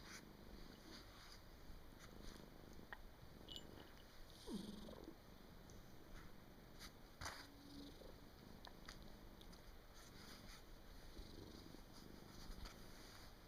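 Faint snoring of a cat in deep sleep, with one clearer snoring breath about four and a half seconds in.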